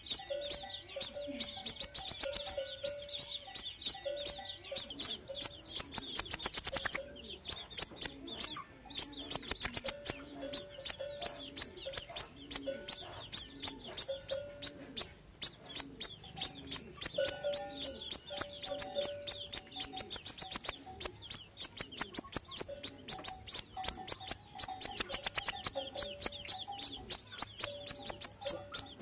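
Sunbird song: very high, rapid chipping trills in repeated bursts, with brief pauses between phrases.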